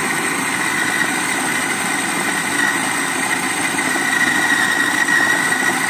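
Kenwood food processor motor running steadily at full speed, its blade chopping raw chicken pieces into a paste. A steady high whine sits over the even motor hum.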